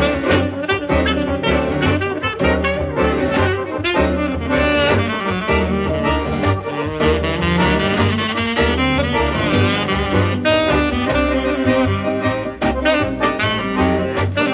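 Jazz with saxophone and brass over a steady beat, in a swing style, played back over a high-end hi-fi system driven by a Gryphon Commander preamplifier and Gryphon Apex power amplifier.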